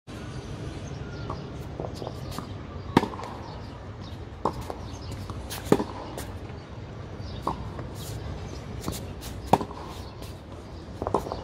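Tennis rally on a hard court: a ball struck by rackets and bouncing on the court, giving sharp pops every second or two, the loudest being the near player's racket hits.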